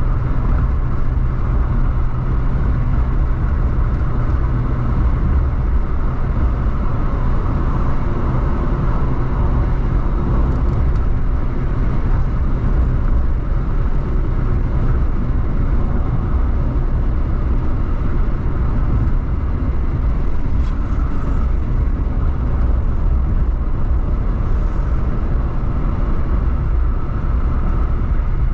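Steady road and engine noise inside a car cruising at highway speed: a constant low rumble of tyres and engine with an even hum.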